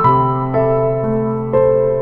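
Background music: a slow keyboard melody of sustained piano-like notes, about two notes a second.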